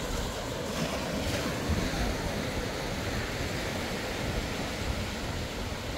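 Sea surf washing onto a sandy beach, a louder wave about a second in, with wind rumbling on the microphone.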